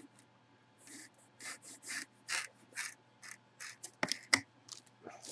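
Cardboard box lid being worked off its box, a run of short rubbing and scraping strokes of cardboard on cardboard, then two sharp knocks about four seconds in.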